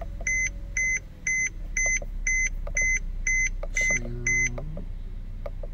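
Mercedes-Benz instrument cluster warning chime beeping steadily about twice a second just after the ignition is switched back on, stopping about four and a half seconds in.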